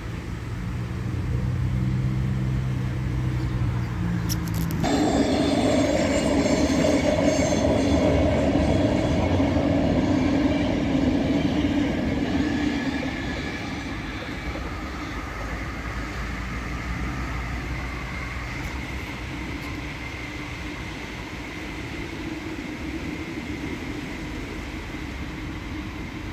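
Automatic car wash running. A low machine hum gives way, about five seconds in, to a sudden loud rush of water jets spraying the car. This is followed by big rotating wash brushes spinning against it with spray, over a steady mechanical drone.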